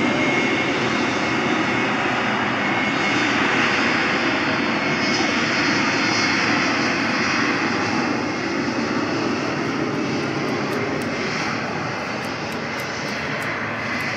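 Jet airliner's engines running at high power as it rolls down the runway: a dense roar with a steady whine riding over it, slowly fading as the aircraft moves away.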